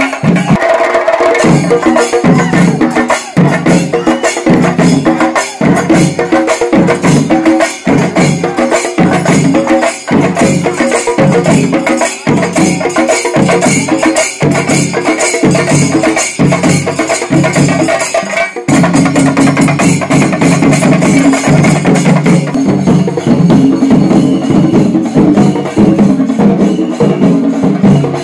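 Loud drum-and-cymbal music beating a fast, dense, steady rhythm. About two-thirds through it changes abruptly, and a sustained low tone joins the percussion.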